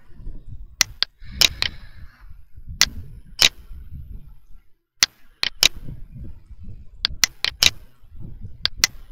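Computer mouse clicking: about fifteen sharp clicks at uneven intervals, several in quick pairs, over a faint low rumble.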